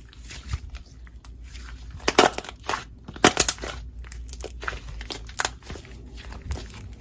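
Hands squeezing and kneading slime with clay mixed in, giving an irregular run of crackles and pops. The loudest ones come about two and three seconds in.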